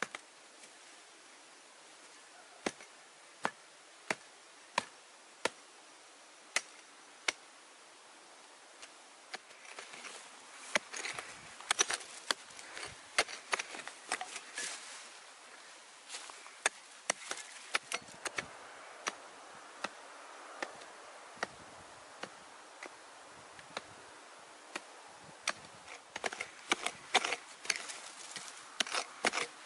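Small pick-mattock chopping into dry, grassy soil to dig a hole: sharp strikes. At first they come singly, under a second apart. From about a third of the way in they come in quicker runs, with loose earth scraping between blows.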